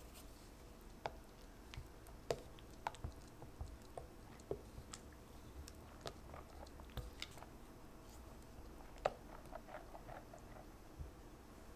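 Silicone spatula stirring heavy cream into a thick cream-cheese batter in a glass bowl: soft, irregular wet squelching with light clicks of the spatula against the glass.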